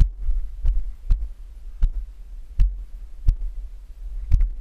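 Footsteps on sandstone, a sharp tap roughly every half second to second at an uneven walking pace, over a steady low rumble.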